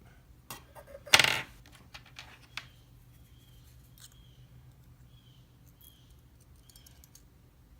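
Small metal clicks and clinks as the pin springs are dug out of a disassembled pin-tumbler lock with a pick, with one louder clink about a second in. Afterwards only faint high chirps repeat about once a second.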